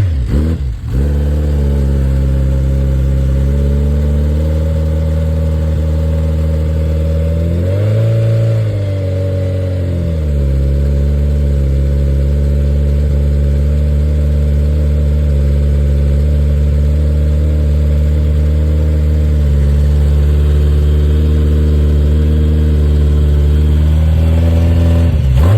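Suzuki Hayabusa GSX1300R's inline-four engine on its first start after a wreck, catching about a second in and settling into a steady idle. One brief rev about eight seconds in rises and falls back to idle.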